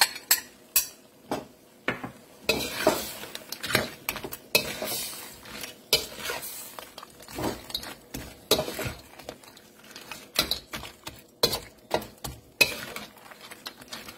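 Chopsticks stirring crab pieces in a steel wok: irregular clinks, knocks and scrapes against the pan over the sizzle of sauce cooking.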